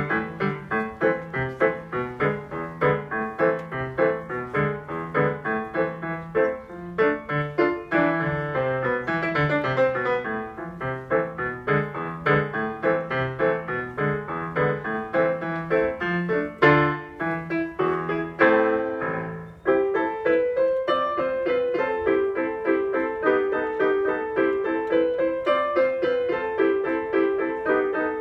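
Solo piano piece played on a console digital piano, steady rhythmic notes over a bass line, with a brief pause about two-thirds of the way through after which the melody carries on higher up with little bass.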